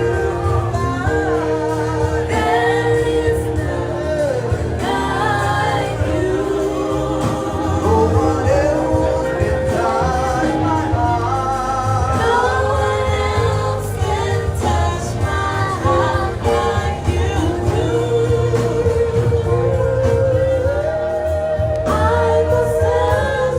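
Gospel worship song: singing voices over a band with a steady bass.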